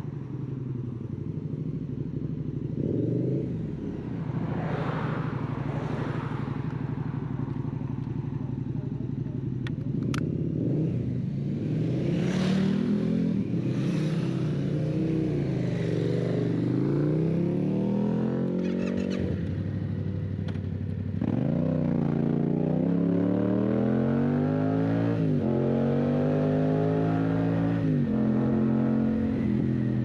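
Yamaha Tracer 700's parallel-twin engine through an Akrapovic exhaust, idling steadily, then pulling away: its pitch rises and drops back several times as it shifts up through the gears.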